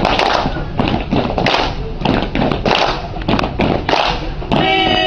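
A steady rhythm beaten out in thumps and claps, a sharp strike every third to half second. Near the end a choir-like chord of voices comes in over it.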